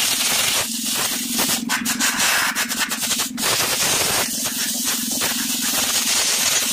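Compressed-air blow gun hissing in repeated bursts as it blows dust and grime off Maruti Alto brake caliper parts, with a run of sharp clicks near the middle.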